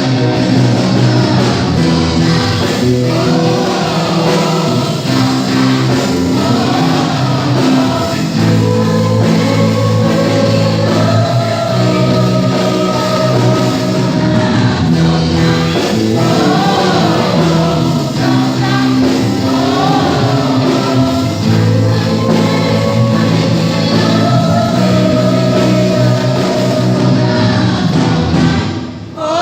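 Gospel worship song: several voices singing together, choir-like, over electronic keyboard accompaniment with steady low bass notes. The music dips briefly near the end.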